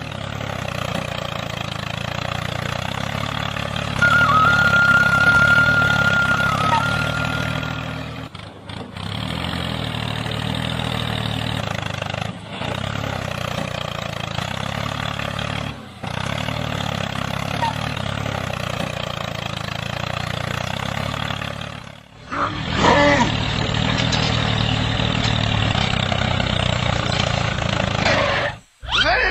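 Toy tractor engine sound running steadily, an engine-like drone broken by several abrupt cuts. A thin high whistle-like tone sounds over it for about three seconds, some four seconds in.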